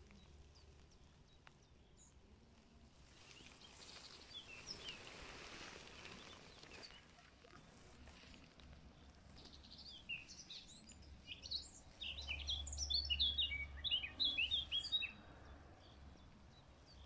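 Small songbirds chirping: a few scattered high chirps at first, then a busy run of quick, overlapping chirps in the second half. Underneath is a soft rushing background with a low rumble.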